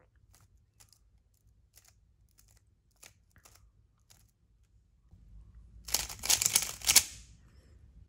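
Plastic layers of a stickerless 3x3 speedcube clicking as they are turned by hand through a PLL algorithm: sparse soft clicks at first, then a fast, much louder flurry of turning clicks and rattling from about five seconds in to about seven.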